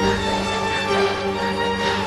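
Slow background music with long held notes; a new low bass note comes in at the start.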